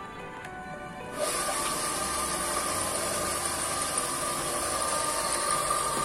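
An electric motor switches on about a second in and runs steadily with a high hum and hiss, over faint background music.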